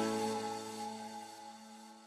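Background music ending: a held chord dies away.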